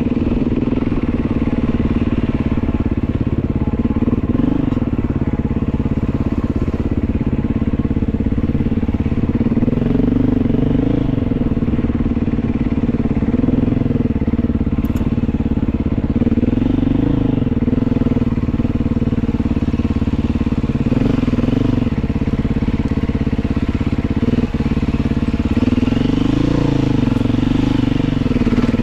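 Beta 500 dirt bike's single-cylinder four-stroke engine running continuously under riding load, its pitch rising and falling over and over as the throttle is opened and rolled off.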